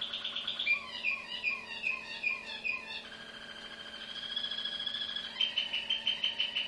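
Malinois (Waterslager) song canary of the Janssen line singing. It opens with fast repeated notes, moves about a second in to a string of falling gliding notes, holds a long even rolling tone through the middle, and returns to fast repeated notes near the end.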